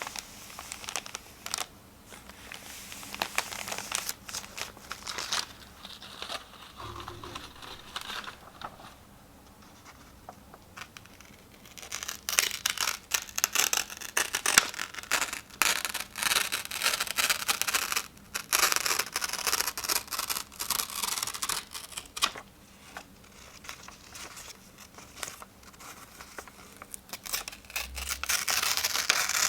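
Sheets of paper being torn and crinkled by hand, in slow rips and rustles that come in irregular bouts, louder in the middle of the stretch, with quieter handling between.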